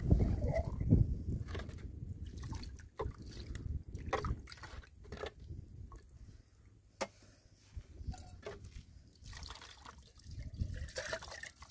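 Water splashing and dripping in irregular strokes, louder in the first second or so.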